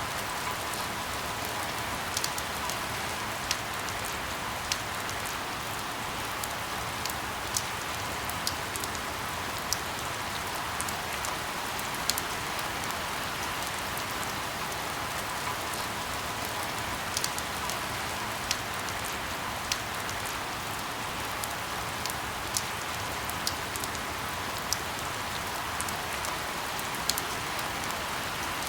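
Steady rain falling, an even hiss with scattered sharp ticks of drops landing about once a second.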